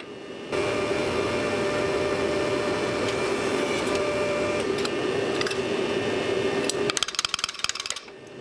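A power tool running steadily for about six seconds, with a held hum under the noise, followed by about a second of rapid clicking near the end.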